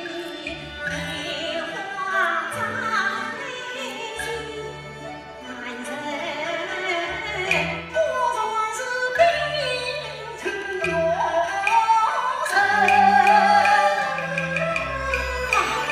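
Yue opera singing: a female voice sings a slow, gliding melodic line over a traditional opera instrumental accompaniment, with sharp percussion clicks marking the beat.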